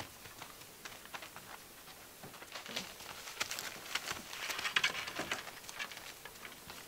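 Six-week-old Gordon Setter puppies fidgeting and mouthing: a quiet scatter of small clicks, rustles and mouth noises, busiest about four to five seconds in.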